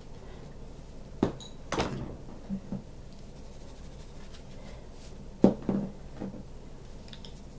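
Seasoning bottles handled and shaken over a plastic mixing bowl: a few sharp clicks and knocks, two in the first two seconds and a quick cluster of three more later.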